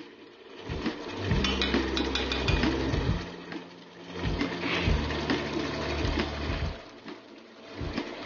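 Thick chicken curry simmering in a non-stick pan, with scattered clicks of a spatula against the pan. A low hum starts and stops every couple of seconds and is the loudest sound.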